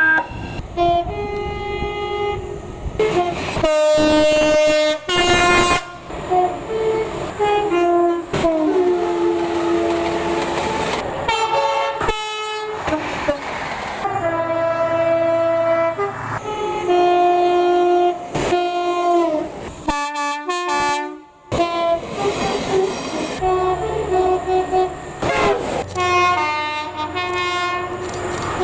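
Train's two-tone horn sounded over and over, switching between a low and a high note in a mix of short toots and longer held blasts, with brief pauses between runs.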